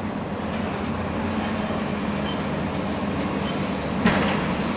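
Komatsu excavator's diesel engine running steadily during demolition work on a concrete-block wall, with one sharp crack of the bucket against concrete about four seconds in.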